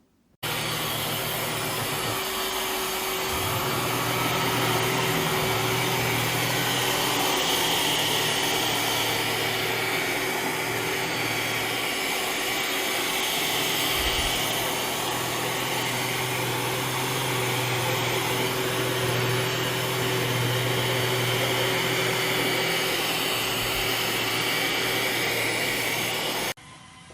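iRobot Roomba Combo j9+ vacuum running: a steady, loud whirring rush with a low hum underneath. It starts abruptly and cuts off suddenly near the end.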